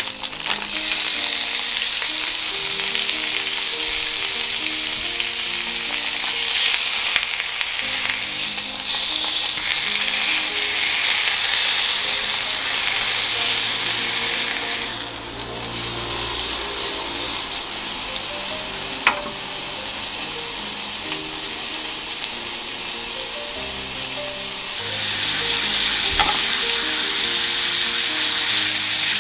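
Sliced duck meat frying on a hot cast-iron pot-lid griddle, a steady loud sizzle of rendering fat as it is stirred with chopsticks. Two sharp single clicks come in the second half.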